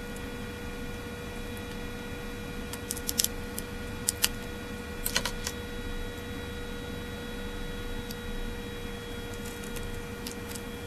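Small sharp clicks and taps of a BlackBerry Curve 8900's plastic and metal parts being handled during disassembly, in clusters about three, four and five seconds in and faintly near the end. A steady electrical hum runs underneath.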